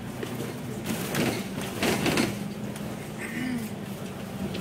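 Double-decker bus running, heard from inside the cabin: a steady engine drone, broken about a second in by two loud, short clattering bursts.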